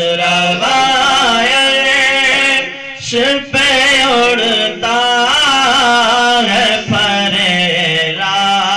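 A young male voice sings an Urdu naat (devotional praise of the Prophet) into a microphone, in a melismatic chanting style with long, wavering held notes. The singing breaks off briefly about three seconds in, then carries on.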